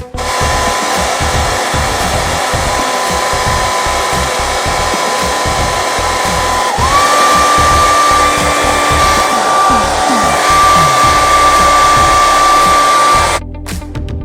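Hair dryer running: it switches on suddenly with a steady rush of air and a thin whine, the whine steps up slightly in pitch about halfway through, and it cuts off about a second before the end. Music plays underneath.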